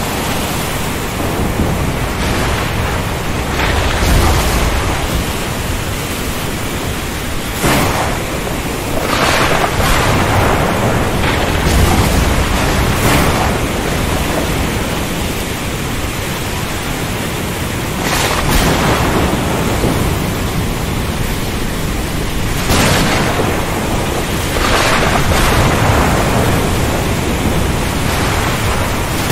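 Thunderstorm at sea: a steady rush of wind and waves, broken by a series of surging wave crashes and low rumbles of thunder.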